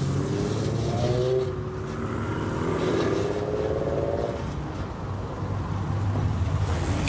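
Cars leaving a car meet: a van's engine pulls away and fades, then the low engine hum of the next lowered car builds as it approaches, louder near the end.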